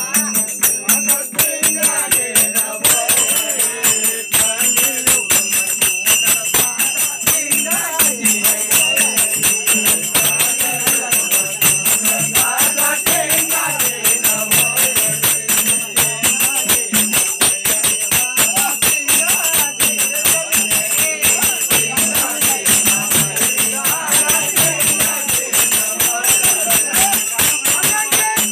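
Live Nimadi folk devotional music: a dholak drum played in a fast, steady beat with jingling metal percussion ringing over it.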